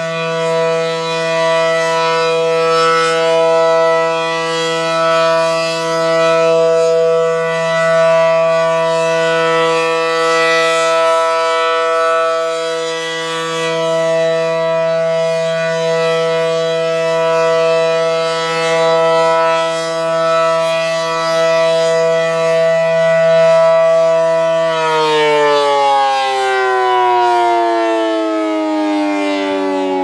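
ACA Allertor 125 outdoor warning siren, wired to run in reverse, sounding a steady alert chord from its 9/12-port rotor. Its loudness swells and fades as the horn rotates. About 25 seconds in the tone is cut and the siren winds down, its pitch falling steadily.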